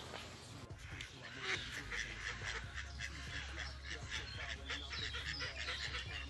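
Mallard ducks quacking, a quick irregular run of short calls that starts about a second and a half in.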